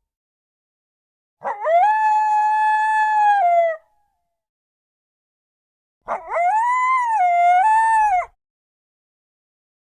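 Coyote howling twice: each howl swoops up from a low pitch into a long high note held for about two seconds, the second wavering up and down, with silence between them.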